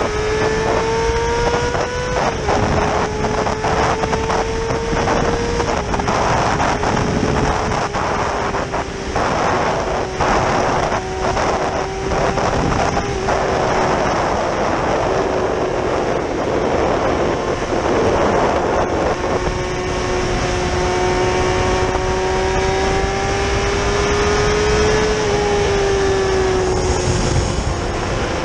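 Yamaha R6's inline-four engine running at steady cruising revs. Its note creeps up and steps down slightly a few times, then falls away near the end as the throttle eases. Wind rushes over the microphone throughout.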